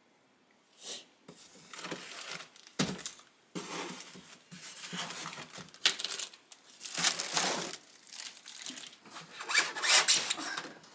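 Plastic packaging crinkling and rustling as it is pulled off a new embroidery sewing machine, in irregular bursts, loudest about seven seconds in and again near the end.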